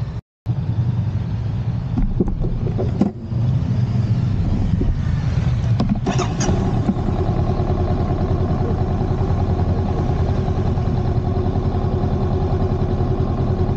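A Honda CL500's parallel-twin engine idling steadily, with a few short knocks about two to three seconds and six seconds in. The sound cuts out briefly right at the start.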